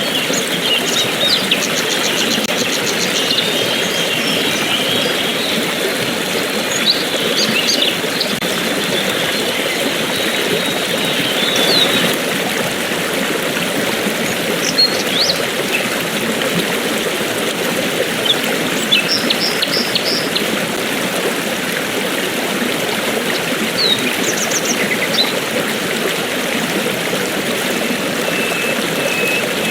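Stream water flowing steadily, with small birds chirping here and there above it and a run of short repeated notes near the end.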